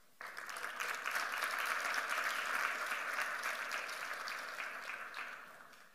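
Audience applauding: the clapping starts suddenly just after the start, holds, then fades away near the end.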